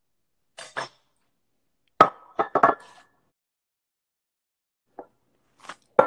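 A few short clinks and knocks of a glass bottle being handled, the loudest cluster about two seconds in with a brief ring.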